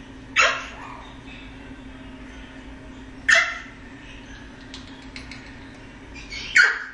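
Male eclectus parrot giving three short, loud calls about three seconds apart, each dropping in pitch.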